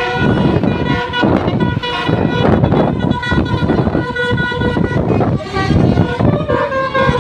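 Bus 'telolet' horn: a set of tuned air horns sounding several notes together and changing pitch from note to note in a playful tune. It plays over loud, surging road and engine noise.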